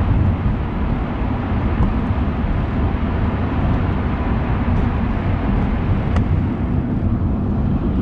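Steady road and engine noise of a car driving at speed through a road tunnel, heard from inside the cabin, heavy in the low range.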